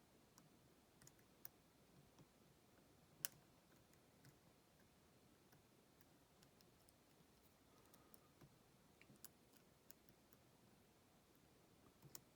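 Faint, scattered clicks of a lock pick and tension wrench working the pins of a five-pin padlock, with one sharper click about three seconds in.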